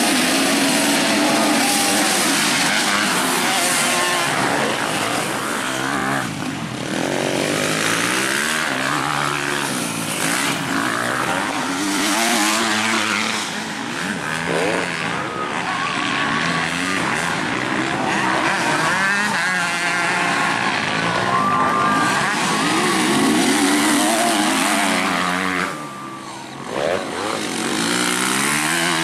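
A pack of motocross dirt bikes revving hard and accelerating together off the start, many engines rising and falling in pitch at once. The engine noise dips briefly near the end, then a bike comes past.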